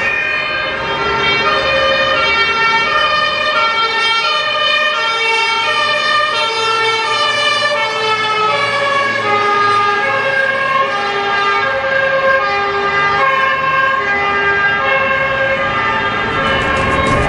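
Several German two-tone fire engine sirens (Martinshorn) sounding at once, each switching between its high and low note out of step with the others, over the noise of the passing trucks.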